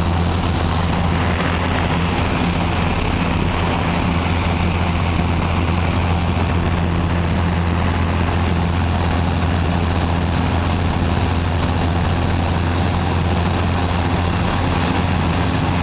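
Engine and propeller of a small high-wing airplane in cruise, heard from inside the cabin: a steady, loud low drone with a few constant overtones and no change in pitch.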